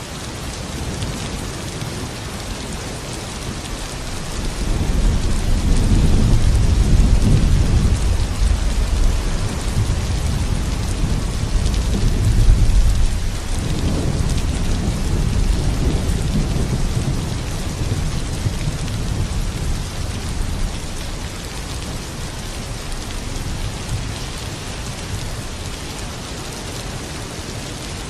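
Steady rain falling, with a long roll of thunder that swells about five seconds in and slowly fades away over the next fifteen seconds.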